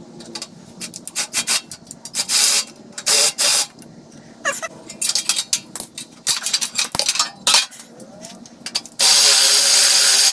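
Cordless drill boring a pilot hole through a steel transmission-mount plate, run in short bursts amid clicks and knocks of handling. Near the end a steady hiss lasting about a second stops abruptly.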